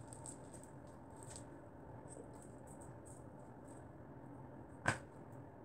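Floam slime, glue slime packed with foam balls, being kneaded and pulled by hand: faint squishing and crackling, with one sharp click about five seconds in.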